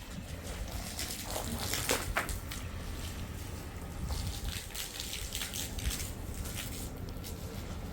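Water splashing and pouring in irregular gushes, loudest about two seconds in, over a low steady rumble.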